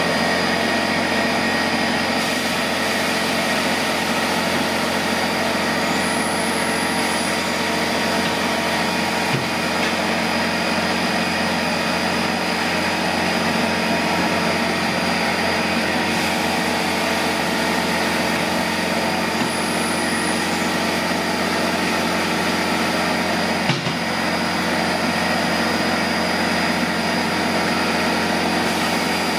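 A motor-driven machine running steadily: an even drone with a steady whine, broken only by a faint knock about nine seconds in and another a little before the end.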